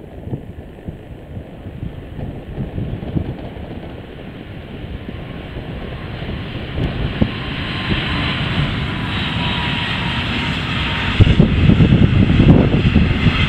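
DB Class 146 electric locomotive hauling double-deck coaches, approaching and passing: a rush and rumble of wheels on rail that grows steadily louder, with a faint whine partway through, and turns much louder about eleven seconds in as the train goes by close.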